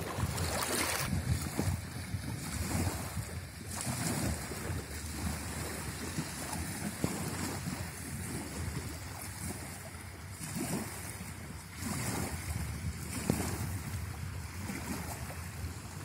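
Wind gusting over the microphone, with small wavelets lapping at a sandy river shore; the noise swells and eases in gusts.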